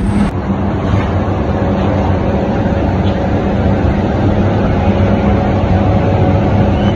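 Steady, loud mechanical hum with a low drone, as from a motor running continuously.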